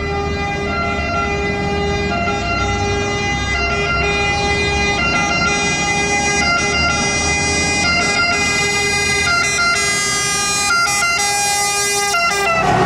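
Two-tone siren of an Italian fire engine, a Scania, switching back and forth between a high and a low pitch, over the truck's engine. It grows slowly louder as the truck approaches.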